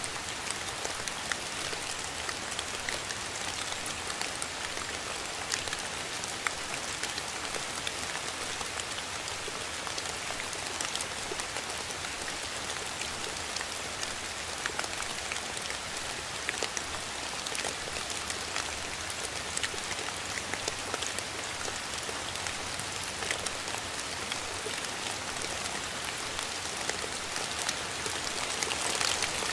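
Steady rain falling on a surface: an even hiss with many separate drops ticking through it.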